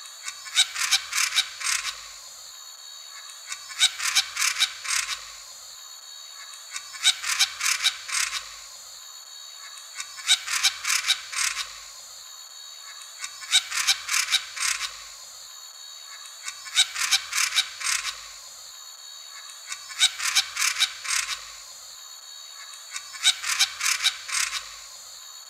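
Black-crowned tityra (Tityra inquisitor) calling: short clusters of sharp, clicking notes, one burst about every three seconds.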